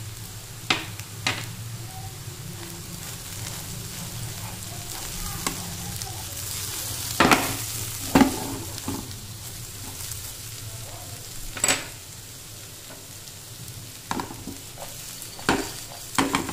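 Diced raw banana sizzling in hot oil in a nonstick kadai while a steel spatula stirs it. The spatula scrapes and clicks against the pan about eight times, loudest around the middle.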